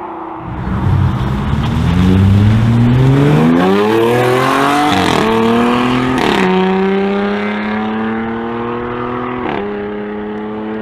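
SUV engine accelerating hard through the gears, its pitch climbing steeply from about half a second in. Two quick upshifts about five and six seconds in, then a steadier pull and another shift near the end.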